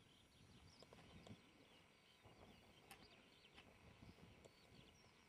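Near silence: faint outdoor background with a low rumble and scattered faint high chirps.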